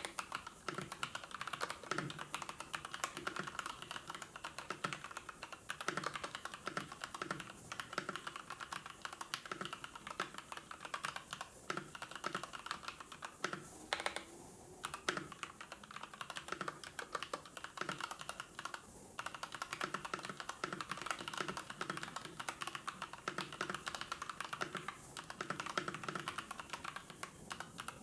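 Continuous typing on a computer keyboard: rapid key clicks with short pauses now and then.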